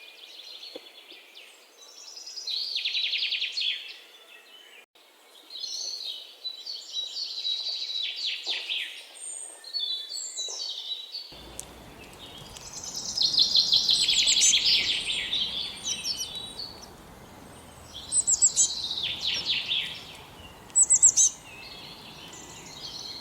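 Several songbirds chirping and singing in overlapping phrases, including fast, high trills that come and go every few seconds. A steady background hiss comes in about halfway through.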